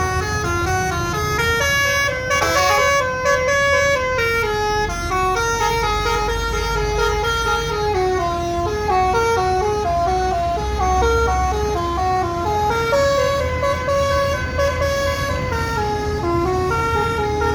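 Bus's multi-tone telolet air horn playing a long, winding melody of short stepped notes, over the low running of the bus engine.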